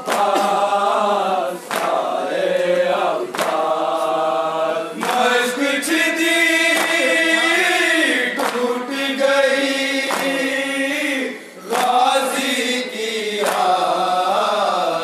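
A group of men chanting a Shia noha (lament) in unison through a microphone and PA, in long drawn-out sung lines. The chanting is punctuated by sharp matam chest-beating strokes about every second and a half to two seconds.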